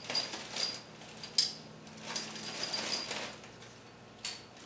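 Small metallic clinks and light jingling, with soft rustling in between.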